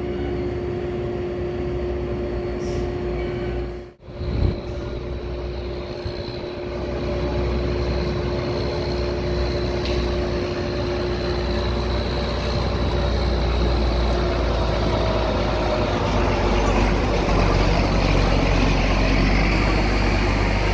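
Farm vehicle engine running, with a steady hum at first. After a brief break about four seconds in, it grows louder and noisier.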